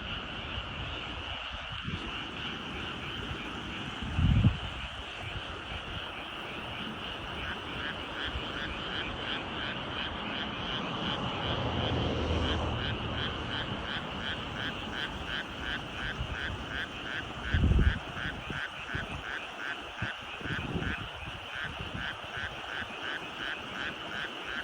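Frogs calling in rice paddies: a steady high chorus, joined about a third of the way in by a rhythmic call repeating about two to three times a second. A low rumble swells and fades in the middle, and there are two short low thumps.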